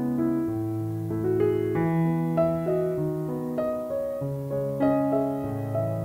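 Background piano music: a melody of single notes over held low chords.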